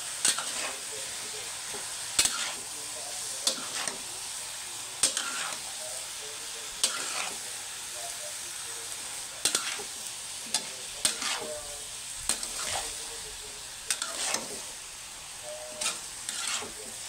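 Metal spatula stirring and tossing chopped young jackfruit in a large aluminium wok, scraping and knocking against the pan roughly every second and a half, over a steady sizzle of frying.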